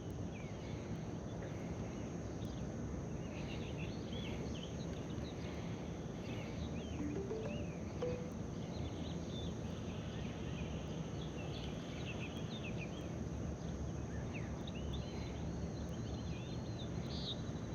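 Outdoor ambience: small birds chirping now and then over a steady background hiss with a thin, steady high-pitched drone.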